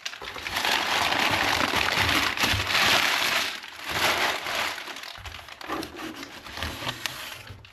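Packaging crinkling and rustling by hand as a parcel is unpacked, louder over the first few seconds and quieter after.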